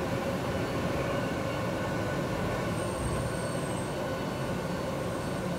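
Pneumatic tube system running: the steady hum and rush of air in the tubing, with a few held tones, and a faint high whistle about three seconds in.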